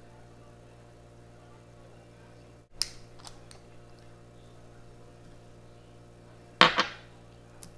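A small glass essential-oil dropper bottle being handled: a sharp click and a few lighter clicks as its cap is put on, then one loud knock about two-thirds of the way through as the bottle is set down on the table, with a small click near the end. A steady low hum runs underneath.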